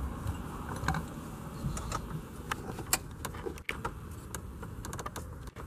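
Scattered light clicks and metal taps from tools and hands working on a car dashboard's stereo mounting bracket, over a low steady rumble.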